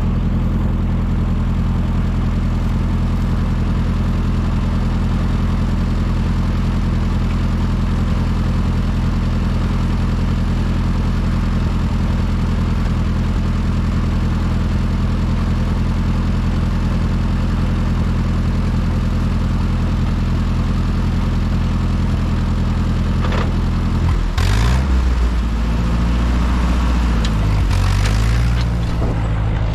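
Ford 8N tractor's four-cylinder gasoline engine idling steadily. About 24 seconds in there are a couple of clunks, then the engine speeds up, its pitch rising and wavering before it settles at a higher note as the tractor is put to work.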